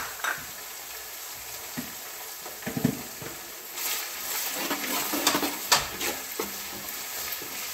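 Garlic and chopped ginger sizzling steadily in hot sesame oil in an aluminium pot, stirred with a steel ladle that scrapes and knocks against the pot several times. The ginger is being fried until its raw sharpness cooks off.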